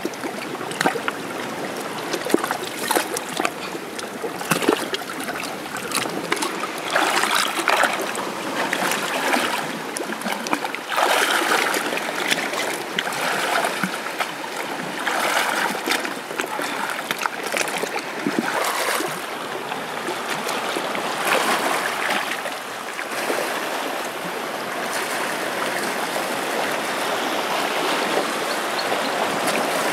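Shallow seawater lapping and splashing around rocks, broken by many sharp clicks and knocks as hands and a tool work at the rock. Near the end the sound settles into a steadier wash of water as someone wades through the shallows.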